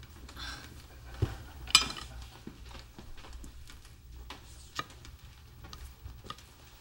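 Light clinks and taps of cutlery and dishes at a dinner table, a handful of scattered strikes, the loudest a little under two seconds in.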